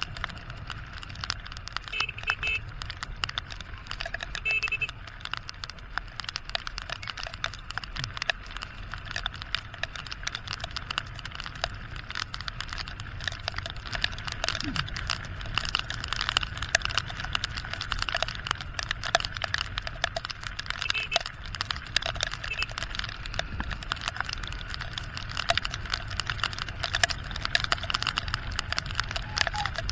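Rain drops hitting the camera in dense, irregular clicks, over the low steady running of a Honda XR150 motorcycle on a wet road.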